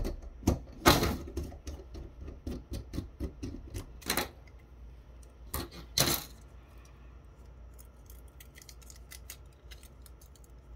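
Small plastic and metal parts of a digital camera's lens assembly clicking, tapping and snapping as they are handled and pried apart by hand. A few louder knocks come in the first six seconds, then only light scattered clicks.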